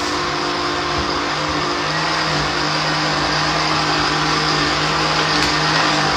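Steady electric motor running with a constant hum and a hiss over it, from a kitchen appliance in use.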